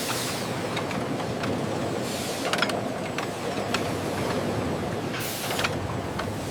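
Industrial machinery running steadily, with two short bursts of hissing air, about two seconds in and near the end, and scattered light clicks.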